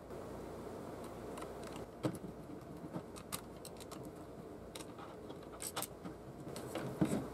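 Scattered small clicks and taps from handling the plastic frame and gears of a partly dismantled CD-ROM drive.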